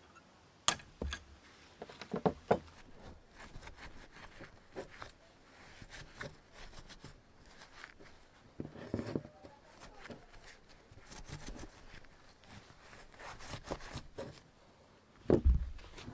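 Hand work on rusty steel hand-drill parts. About a second in there is a sharp metal knock, followed by a few lighter knocks. Then comes a scratchy rubbing of a rag over a rusty metal part, and near the end a heavier thump as the metal frame meets the wooden table.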